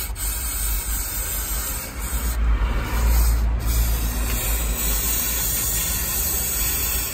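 Aerosol brake cleaner hissing steadily as it is sprayed onto the ATV's front differential and axle area to wash off spilled gear oil. The spray briefly eases about two and a half seconds in, then carries on.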